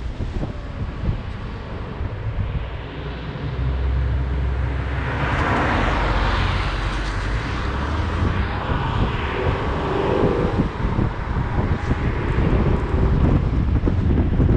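A moving car heard through a car-mounted action camera: wind buffeting the microphone over a low road and tyre rumble, with a broad rushing swell about five seconds in that fades out by about eight seconds.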